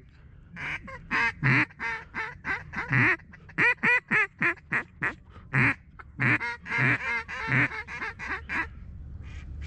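Mallard quacking: a long run of loud, short quacks in quick, uneven series, thinning out near the end.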